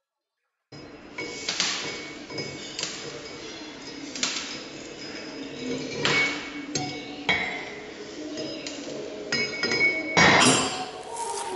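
Chipping hammer striking a fresh weld bead on a welded mild-steel plate anvil to knock the slag off: several sharp metallic strikes a second or more apart, the loudest near the end, over background music.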